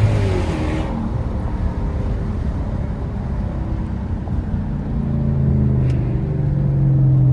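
Lexus GS430's V8 with no catalytic converters, running on the road: its note falls as it slows in the first second, then settles into a low steady drone that gets louder about five seconds in.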